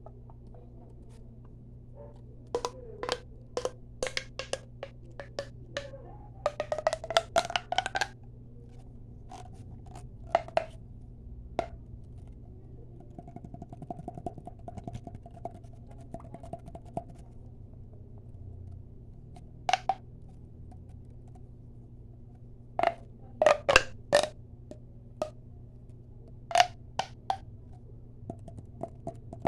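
Quick taps on a hard object, coming in irregular bursts of several taps with pauses between, some with a short hollow ring. A steady low hum sits underneath.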